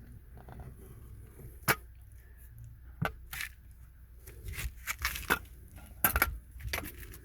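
Scattered sharp metallic knocks and clicks as a loosened car steering column is handled and lifted out. The sharpest knock comes about a second and a half in, with a cluster of knocks around six seconds.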